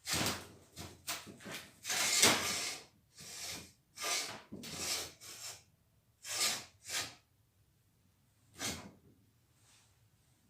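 An irregular series of short scraping and rubbing noises, about a dozen, with one more after a pause near the end.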